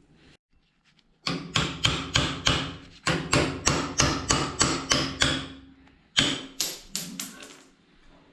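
Hammer tapping a metal bushing sleeve out of a rear shock absorber's mounting eye: a quick run of about four or five ringing metal strikes a second, a brief pause, then a shorter run of strikes.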